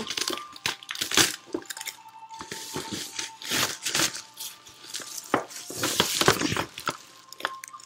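Plastic bubble wrap crinkling and rustling in irregular crackles and swishes as it is cut with a box cutter and pulled off a cardboard box.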